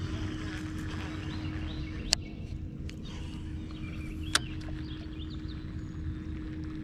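Small birds chirping over a steady low hum and outdoor background noise, with two sharp clicks: one about two seconds in and another about two seconds later.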